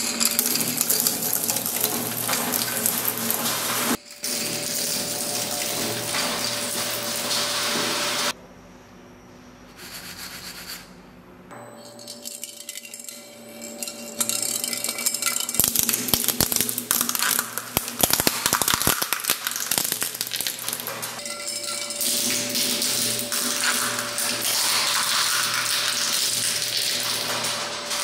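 Twin-shaft shredder crunching a handful of wooden pencils for several seconds. After a quieter stretch of the blades turning, it cracks and chews up a plastic baby rattle ball, with a dense run of sharp snaps in the middle, over the steady hum of the machine.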